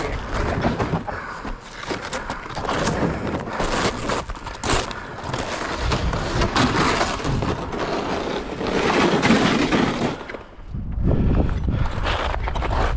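Snowshoe footsteps crunching and scraping through snow, with wind rumbling on the microphone.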